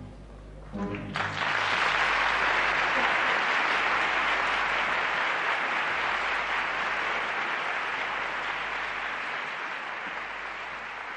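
Theatre audience applauding at the end of a sung zarzuela duet. The applause starts about a second in after a short hush, holds steady, and slowly fades toward the end.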